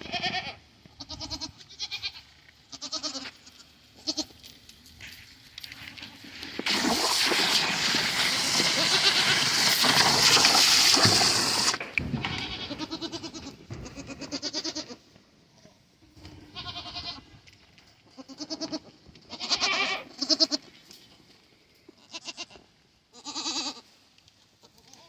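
Dairy goats bleating again and again, short calls overlapping from several animals. In the middle a loud hissing rush lasts about five seconds, louder than the goats, and cuts off suddenly.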